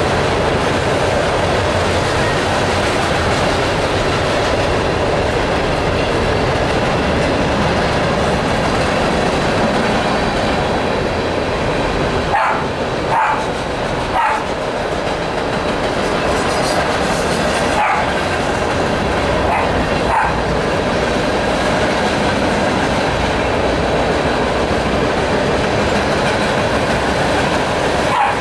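Freight cars of a long freight train rolling past, with a steady, loud noise of steel wheels on the rails. A dog barks several times from about halfway through, with the last bark near the end.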